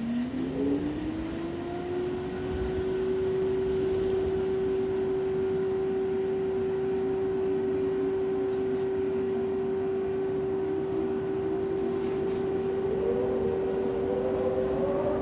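Storm wind howling: a steady moaning tone that rises in pitch over about the first second and then holds, over a constant rush of wind noise, with a second wavering tone joining near the end.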